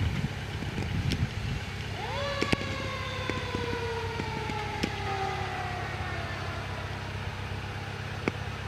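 Fire engine siren sounded briefly about two seconds in: its pitch rises quickly, then slides slowly down and fades over several seconds. Under it runs the low, steady sound of the 2018 HME Ahrens-Fox pumper's engine as the truck moves off.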